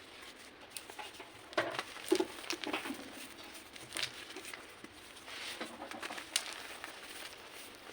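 Gym chalk being crushed: irregular crunches and sharp cracks, a cluster of the loudest about two seconds in and a few scattered ones later.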